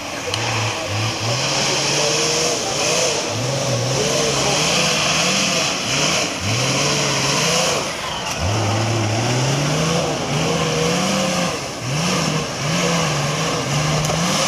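Off-road competition vehicle's engine revving up and down over and over, its pitch climbing and falling back several times as the driver works the throttle, with a steady hiss alongside.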